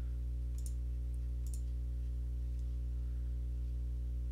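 A few short computer mouse clicks, the first about half a second in, over a steady low hum.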